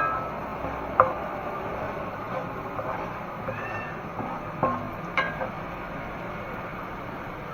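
Aromatics frying in oil in a pan, with a few sharp clinks of a spatula against the pan, loudest about a second in and again about five seconds in. A cat meows briefly a few times.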